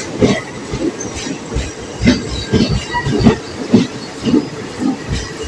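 Coaches of an Indian Railways express rolling slowly into a station, wheels knocking over rail joints about twice a second, with a few short, faint wheel squeals.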